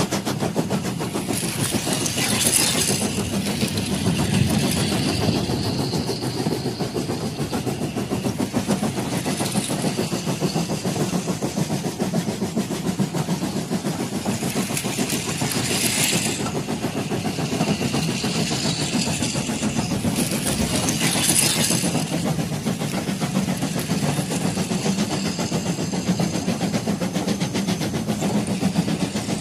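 Battery-powered toy steam locomotive running on plastic track: a steady whirring of its small electric motor with fast clicking from its wheels and gears. A few brief bursts of hiss come through, about two seconds in and twice more later.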